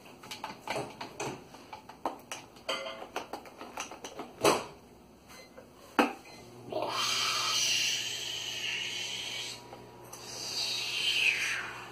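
Small clicks and clattering of metal and plastic coffee-maker parts being handled, with a sharper knock about four and a half seconds in and another at six. Then comes a hissing rush lasting about three seconds, and near the end a second whoosh that falls in pitch.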